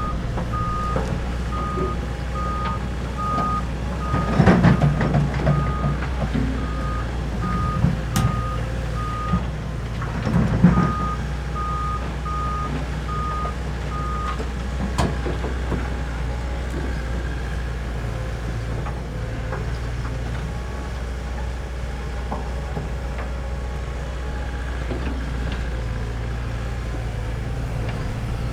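Doosan DX140LCR-5 short radius excavator running steadily while its travel alarm beeps at about two beeps a second, stopping about halfway through, with two louder rumbling spells from the machine working, near 4 and 10 seconds in.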